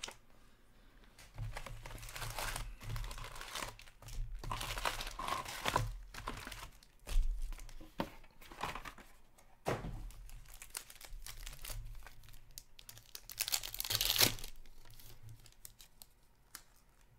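Trading-card pack wrappers being torn open and crinkled by hand, in several bursts, the loudest near the end. A couple of sharp knocks come in the middle as the card boxes are handled.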